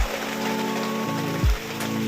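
Background music with held synth chords that change about a second in and two deep bass-drum thuds that drop in pitch, over a steady hiss of heavy rain.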